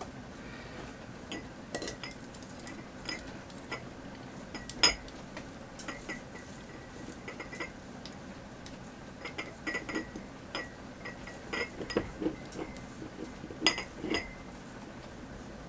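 Metal tongs clicking and clinking against a stainless steel stockpot and glass canning jars as green beans are lifted out and packed into the jars, in scattered light taps with a sharper clink about five seconds in.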